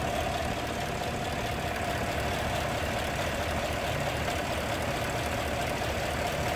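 A 6.2-litre EcoTec3 V8 in a 2017 Chevrolet Silverado 1500 idling steadily, heard from right over the open engine bay.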